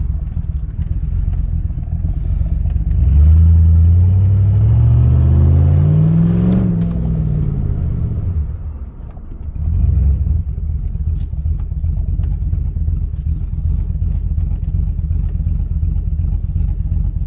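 Cammed GM 4.8 L V8 with a muffler delete, heard from inside the cab. About three seconds in it is given throttle and its note rises for a few seconds, then falls as the throttle is let off. It settles back to a choppy, lumpy idle in gear at about 660 rpm, just on the borderline of stalling.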